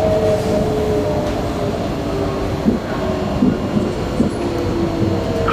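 Singapore MRT electric train running, heard from inside the passenger car: a steady rumble of wheels on the track with a few faint rail clicks. Over it, the traction motors whine in two tones that slowly fall in pitch.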